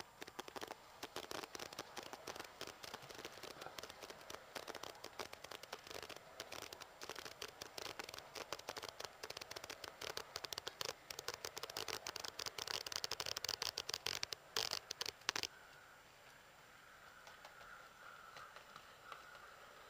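Model trains running on a model railway layout: a dense, rapid clicking and clatter of small wheels over rail joints and pointwork that grows louder and cuts off suddenly about three quarters through, leaving a faint steady whine.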